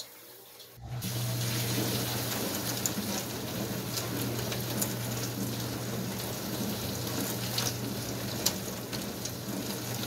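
Dishwasher washing: the wash pump's steady hum under the hiss and splash of water sprayed by the wash arm against the tub and a clear front panel. The wash water is dosed with dish soap and suds are building. The sound cuts in about a second in.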